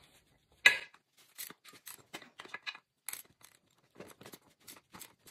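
Hand wrench on a bolt, clicking in short repeated strokes about two to three a second, with one sharper metal clack about a second in, as a nut is worked off the mower's caster wheel bolt.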